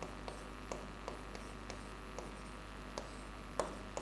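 Marker pen writing on a whiteboard: faint, irregular taps and scratches of the tip as the strokes are made, one sharper tap near the end, over a steady low hum.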